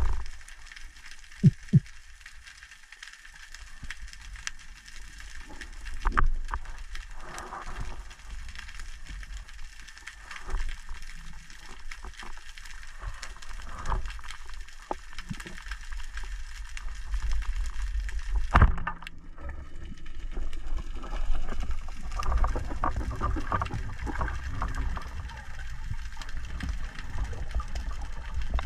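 Underwater sound through a camera housing: steady low water noise with two short knocks near the start, then about two-thirds through a single sharp snap as a rubber-band speargun fires, followed by busier rushing water noise.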